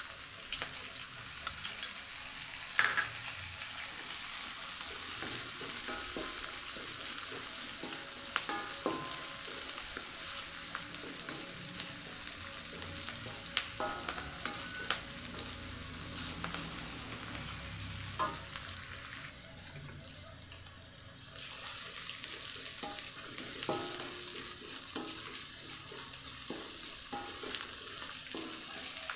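Oil sizzling steadily as sliced shallots, garlic, chillies and ginger fry in a metal wok, stirred with a wooden spatula that now and then knocks against the pan.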